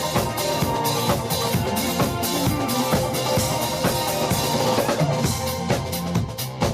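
Band music with a drum kit keeping a steady beat, bass drum and snare hits over held instrumental tones.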